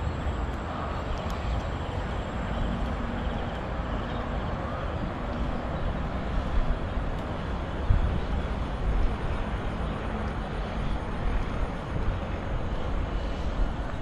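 Steady low rumble of distant engine noise.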